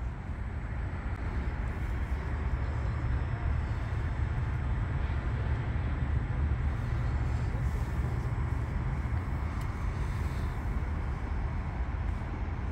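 Steady rumble of distant road traffic, heaviest in the low end, with no distinct events.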